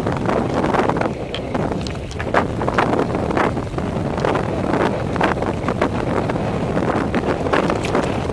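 Wind rushing over the microphone of a mountain bike descending rocky singletrack, with tyre noise and frequent sharp clicks and knocks as the bike rattles over the rough trail.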